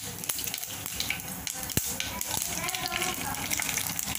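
Mustard seeds crackling and popping in hot oil for a tempering: a steady sizzle full of small quick pops, with one sharper pop a little under two seconds in.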